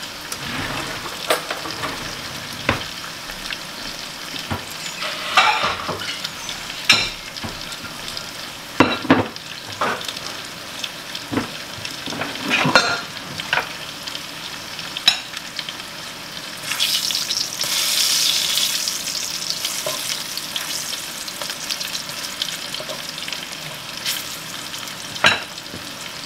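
Sliced squash frying in hot grease in a cast-iron skillet: a steady sizzle with scattered sharp pops, swelling louder for a few seconds a little past the middle.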